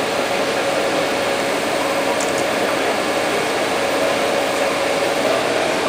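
Manitou MTH 10225 L telehandler running steadily while its tyre clamp tilts a large mining tyre: an even machine drone with a constant mid-pitched whine.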